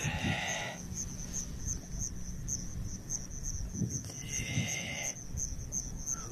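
Crickets chirping in a steady, evenly pulsing high trill. Two short, harsh buzzing calls from another animal, one at the very start and one about four seconds in, over a low rumble.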